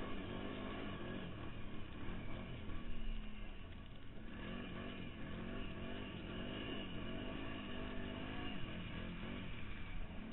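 Quad bike engine revving up and down as the rider throttles through slides on snow, easing off briefly about four seconds in before picking up again.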